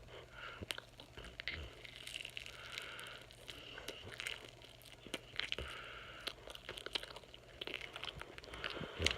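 Mouth sounds of someone chewing marshmallows and squeezing them through the teeth: many small, wet clicks and smacks.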